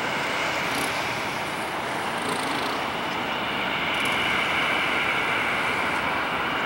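Boeing 737-800's CFM56-7B turbofans at taxi power: a steady jet rush with a high whine, a little louder about four seconds in as the aircraft turns and its engines come round to face the listener.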